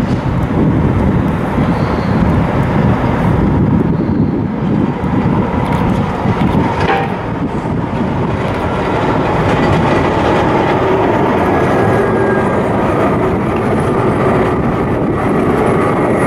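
A low-floor electric tram approaching and passing close by, rumbling over street rails, with a single sharp clack about seven seconds in. A steady whine from the tram's motors joins in from about ten seconds in.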